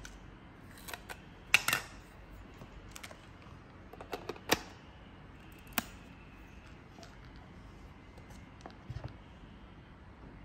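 Scattered clicks and taps of a TTArtisan 56mm f/1.8 lens and its plastic caps being handled and twisted onto a Fujifilm camera's lens mount. The loudest clicks come in a quick cluster about one and a half seconds in, with single sharp clicks at about four and a half and six seconds.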